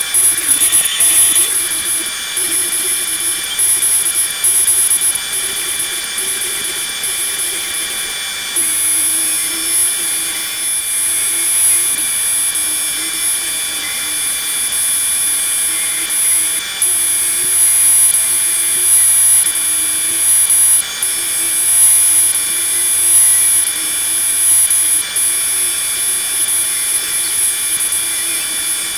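Laguna Swift CNC router cutting half-inch Baltic birch plywood with a quarter-inch compression bit: a steady high spindle whine over the rush of the running vacuum hold-down and dust collector, the level swelling and dipping as the bit works through the sheet.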